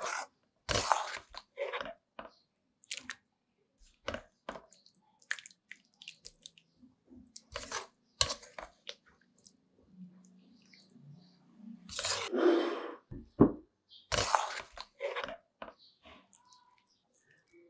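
A spatula stirring wet greens in a metal pan: scattered clicks, knocks and short scrapes, with one longer, louder scrape about twelve seconds in.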